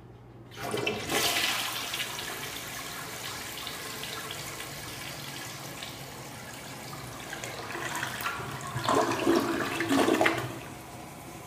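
Crane Neu Chateau tank-type toilet flushing. The rush of water starts about half a second in and runs steadily while the bowl swirls. It grows louder near the end as the bowl empties, then drops back to a quieter steady run of water.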